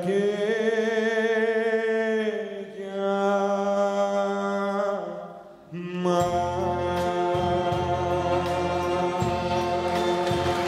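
Male vocalist with a string orchestra: the singer holds long notes with vibrato over sustained strings, then about six seconds in the full orchestra, deep bass included, comes in on a held closing chord. Applause begins to rise near the end.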